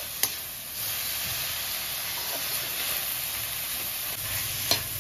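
Onion-tomato masala sizzling steadily in a metal kadai as the tomatoes cook down, with a slotted spatula stirring through it. Two sharp clicks, one just after the start and one near the end, from the spatula knocking the pan.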